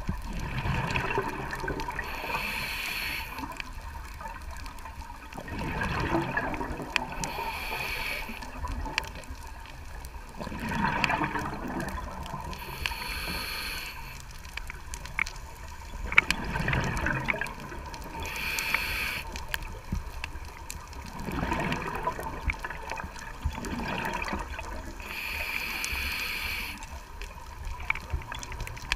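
A scuba diver breathing through a regulator underwater: a hissing inhale alternating with a bubbling exhale, the cycle repeating about every five to six seconds.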